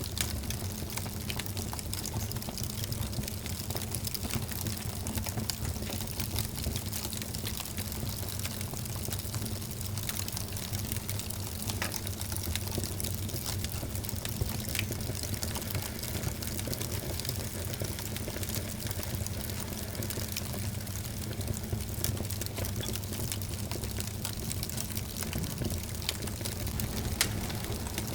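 Wood fire burning in a fireplace: a steady hiss and low rumble of flames, with frequent small crackles and a few sharper pops.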